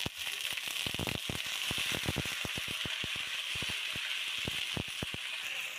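Water hitting hot ghee and golden-fried onions in a non-stick wok, bursting into a steady sizzle. Many sharp clicks run through it as a spatula stirs the pan.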